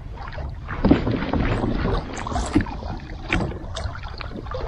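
Wind buffeting the microphone over water lapping against a kayak's hull, with a few light knocks and clicks as fishing gear is handled.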